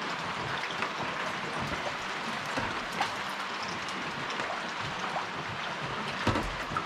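Steady rain falling, with scattered small ticks and one sharper knock near the end.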